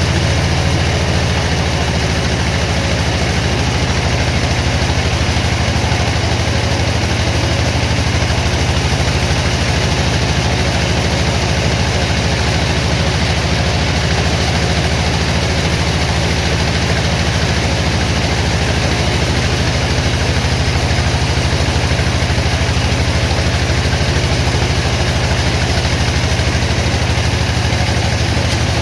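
Heavy sawmill machinery running steadily with a deep, even drone that does not change.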